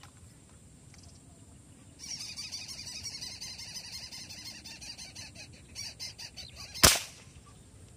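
A bird chattering rapidly for about five seconds, then a single sharp crack near the end as a fishing airgun is fired down into the water at tilapia.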